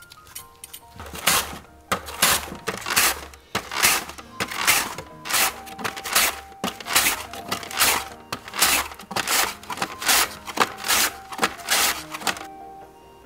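Lotus root being sliced paper-thin on a mandoline: a quick run of crisp scraping strokes, about two a second, that starts about a second in and stops near the end. Background music plays underneath.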